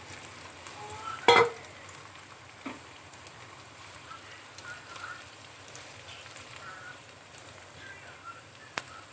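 Marinated chicken pieces sizzling in hot oil in a pan, with a loud clatter about a second in and a sharp click near the end.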